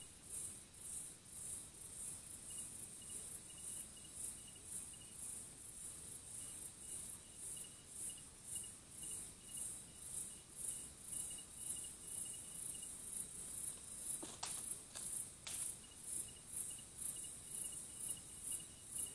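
Night insects calling: a high, cricket-like chirp pulsing steadily about twice a second, with a fainter, lower series of short quick pips coming and going. Two sharp clicks stand out about three-quarters of the way in.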